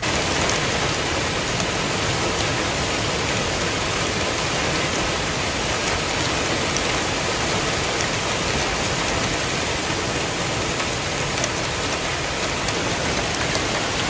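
Heavy rain pouring down in a dense, steady hiss, with scattered drop ticks, heard from a car.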